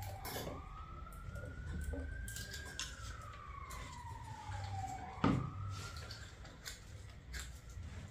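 Emergency-vehicle siren wailing, its pitch slowly rising and falling. Light clicks come through it, with a sharper knock about five seconds in.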